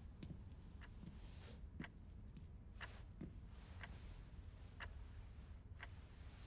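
A clock ticking faintly and steadily, about one tick a second, over a low room hum.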